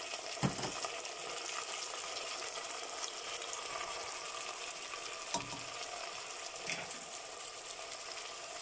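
Steady sizzling hiss of vegetables cooking in a hot stainless steel pot, broken by three light knocks.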